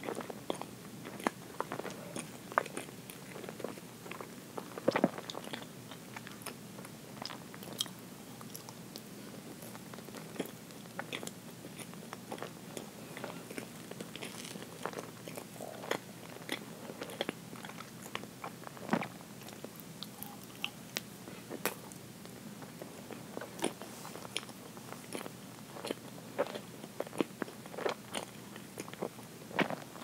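Close-miked chewing and mouth sounds of eating chocolate roll cake: soft, wet smacks and irregular small clicks, with no talking.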